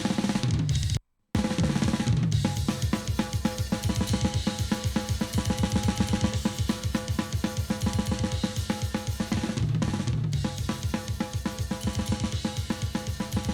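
Recorded live drum kit played back, fast drumming with cymbals running throughout; the playback cuts out for a split second about a second in.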